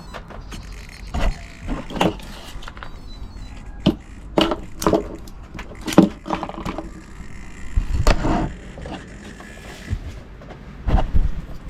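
Irregular knocks and clatters, about a dozen spread unevenly with short gaps between, over a low background hum.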